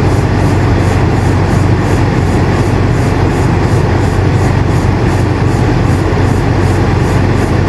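Air conditioner running steadily: a constant rush of air with a strong low hum, and a faint rapid pulsing in the high hiss.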